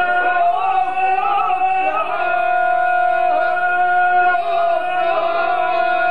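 Ganga, the traditional unaccompanied folk singing of the Herzegovina highlands: a small group of men singing, with one long steady held tone while another voice wavers and moves around it.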